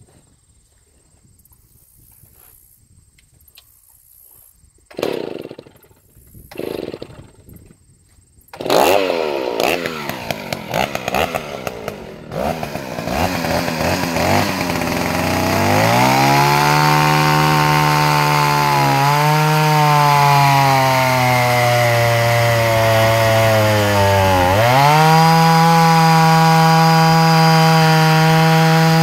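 Stihl 041G gear-drive two-stroke chainsaw pull-started: two rope pulls about five and seven seconds in, then the engine catches and runs unevenly. It then revs up and saws through a pine log, running steadily under load with its pitch dipping briefly a few times as the cut bogs it down.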